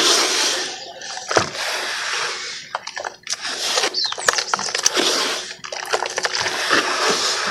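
Hands swishing through a basin of cement-clouded water and squeezing soft wet cement, a steady run of splashing and squelching with many small drips and ticks.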